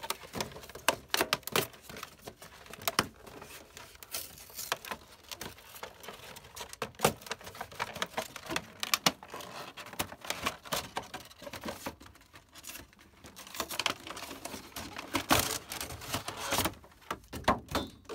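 Clear plastic packaging and a cardboard Pokémon card box being pulled apart and handled: a steady run of crinkling, tearing and small clicks and taps, with bursts of louder crackling at the start, around the middle and near the end.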